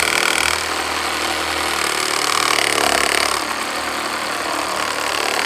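Meterk 20V cordless reciprocating saw running steadily while its blade saws through wood, set to orbital action, which the user believes makes it cut faster.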